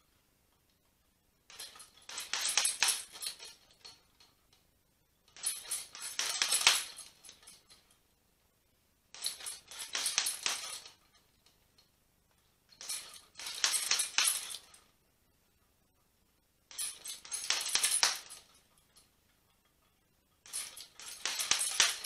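Boxing gloves striking a hanging heavy bag in quick five-punch combinations (1-1-6-3-4), six bursts about every three and a half to four seconds. Each burst comes with a metallic jingling from the bag's hanging chain.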